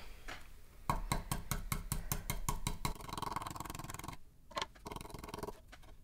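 Stencil brush pounced up and down in quick, light taps, about five a second, stippling wood-burning paste through a stencil. The tapping stops about three seconds in and gives way to quieter rustling, with one click near the middle.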